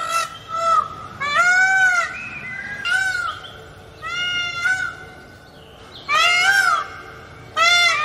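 Indian peafowl giving a series of loud, short honking calls at irregular intervals, about eight in all, some in quick pairs.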